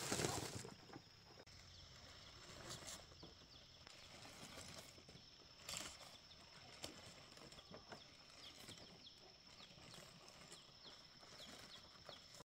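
Dried corn cobs knocking against each other and the bamboo platform as they are spread by hand: faint, scattered hollow knocks, after a brief rush of cobs pouring from a sack at the very start. A steady high insect drone and small high chirps behind.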